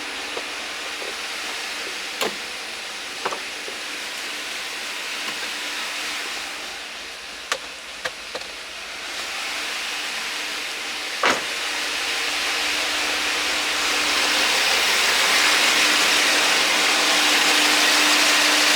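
Chevrolet 5.3 V8 idling at full operating temperature under a steady hiss, with no rhythmic lifter tick; it is running smoothly after a DOD delete. A few sharp, isolated clicks sound in the first half, and the hiss grows louder over the last few seconds.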